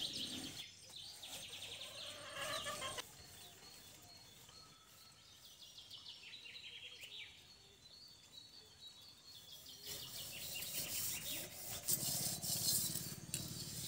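Hands scraping ash out of a mud stove and rubbing wet mud over the outside of a clay pot, both rasping sounds. Birds chirp repeatedly in the background.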